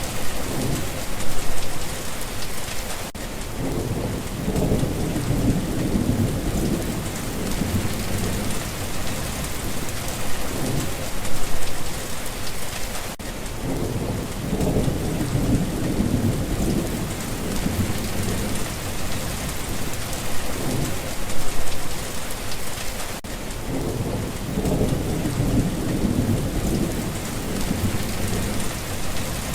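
Steady rain with low thunder rumbling three times, about every ten seconds, as the same short stretch of recording repeats.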